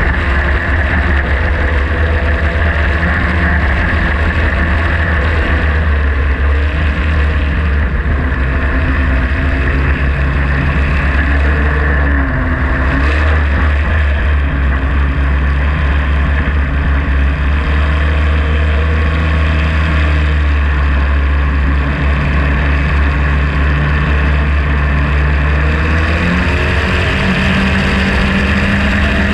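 Racing hydroplane's engine running hard at speed, with water spray rushing past the hull. The engine note holds mostly steady, dips briefly about halfway through, and rises near the end.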